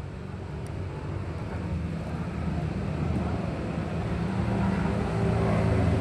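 Street traffic with a vehicle engine running and drawing nearer, growing steadily louder.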